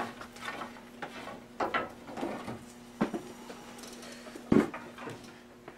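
Pieces of wood knocking and clattering as sticks are handled and pulled from a woodpile, with a heavier thump about four and a half seconds in. A faint steady hum runs underneath.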